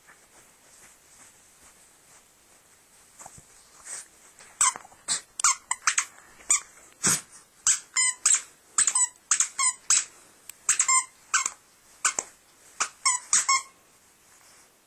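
A dog's squeaky toy squeaked over and over as a small dog bites down on it: about two dozen short, sharp squeaks in quick, uneven succession, starting about four seconds in and stopping shortly before the end.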